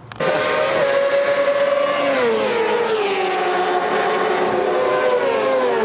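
Racing motorcycle engine at high revs, its pitch falling in several glides.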